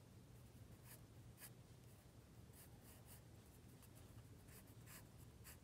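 Faint scratching of a wooden pencil sketching short strokes on sketchpad paper, over a low steady hum.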